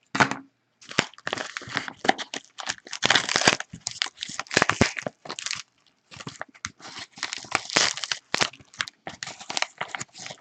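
Packaging of a mailed package being torn and crinkled open by hand, in dense irregular crackles and tearing bursts with a short pause about halfway.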